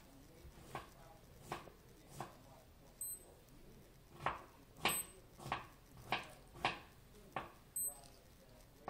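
Digital wristwatch beeping three times with short, high-pitched beeps as its button is pressed, among a run of short, soft puffing sounds that come about every half second to a second.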